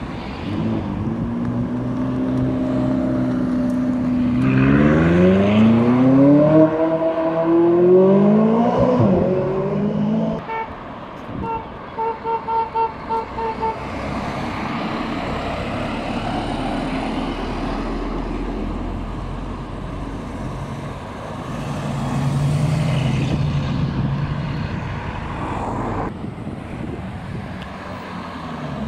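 An orange McLaren sports car's twin-turbo V8 runs steadily at low revs. About four seconds in, it accelerates hard, the revs rising and falling back through several quick upshifts. Then a car horn toots about seven times in quick succession, followed by passing traffic with a lorry's low engine rumble.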